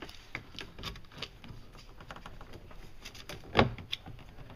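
Scattered light taps and clicks from handling a golf-cart windshield as its side extrusion is pushed onto the edge, with one louder knock about three and a half seconds in.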